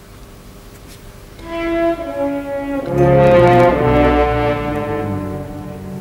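Orchestral background music cue of held string and brass notes: it enters softly about a second and a half in and swells, with low bass notes joining about three seconds in.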